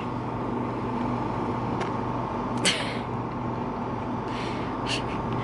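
Steady machine hum, as from an idling engine or a ventilation unit, with a few light clicks and a short hiss about two and a half seconds in.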